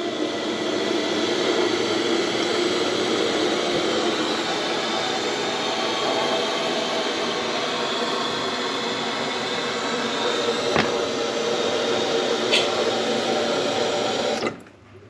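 Concealed toilet cistern refilling through its fill valve: a steady hiss of water running in, now that the newly fitted flush valve has closed and the cistern holds its water. It cuts off suddenly near the end.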